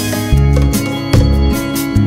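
Background music: guitar over a steady beat.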